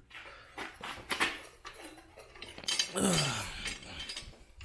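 Metal clinks and rattles from a mobile miter saw stand being handled, with its legs and bent foot knocking. The noise grows louder and busier about three seconds in.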